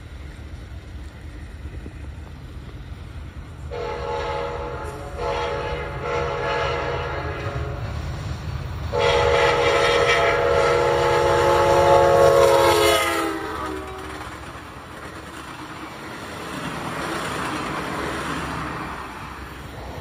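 Amtrak Piedmont passenger locomotive approaching and sounding its multi-note air horn, with the diesel engine rumbling underneath. The horn comes in about four seconds in with a short blast, then a longer sounding, then the loudest and longest blast from about nine to thirteen seconds. After that the rumble drops away and a softer rushing noise follows near the end.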